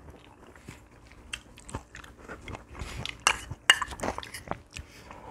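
Eating sounds at a table: a metal spoon and chopsticks clicking and scraping against porcelain bowls, mixed with chewing. The clicks are irregular, with a few louder ones around three to four seconds in.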